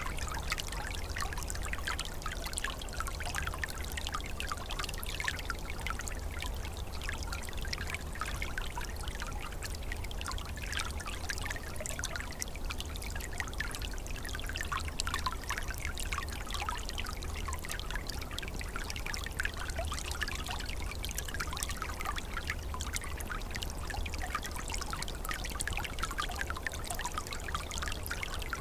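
Small forest stream trickling and babbling steadily, with a dense patter of small gurgles and splashes, over a steady low rumble.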